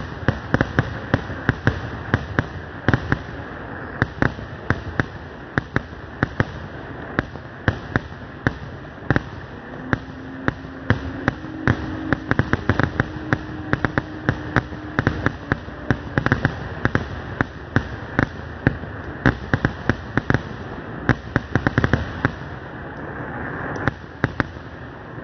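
Fireworks finale: aerial shells bursting in rapid succession, sharp bangs several times a second over a continuous crackle and rumble.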